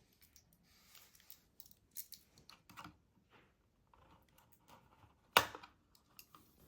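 Plastic body of a Kodak FunSaver disposable camera being pried and pulled apart by hand: scattered small clicks and scraping, with one sharp loud click a little over five seconds in.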